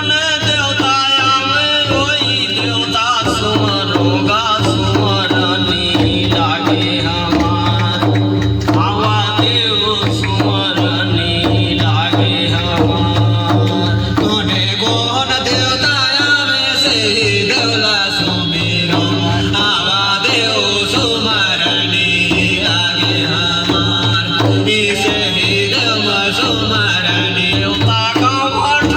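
Chhattisgarhi devotional folk song (jas geet): singing over drums with a steady, even beat.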